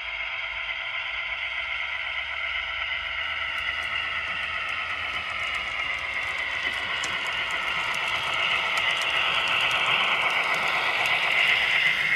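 Model train of diesel locomotives and freight cars running along the track, with a steady running noise and light clicking. It gets louder over the last few seconds as the train comes close and passes.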